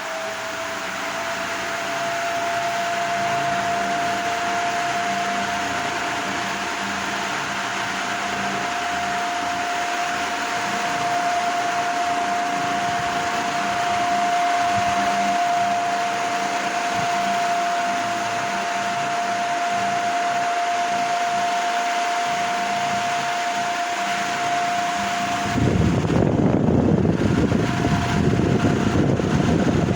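Ventisol Fharo ceiling fan running: a steady motor whine over the rush of moving air, rising slightly in pitch and growing louder over the first few seconds as it comes up to speed. About 25 seconds in, a louder, rougher rushing noise suddenly joins.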